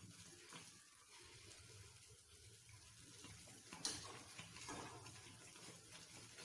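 Faint bubbling and stirring of thick gram-flour batter cooking in ghee and oil, a wooden spatula working it around the pan, with one sharp click a little before four seconds in.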